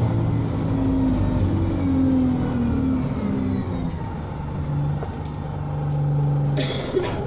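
Alexander Dennis Enviro200 single-deck bus's diesel engine running, its note falling in pitch over the first few seconds as the revs drop, then settling to a steady lower note. A short hiss sounds near the end.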